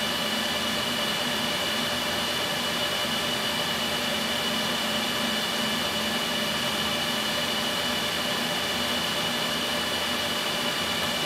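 Cooling fans of an HP ProLiant DL380 G4 rack server running steadily while it boots through POST: an even whooshing whir with a few faint steady whining tones in it.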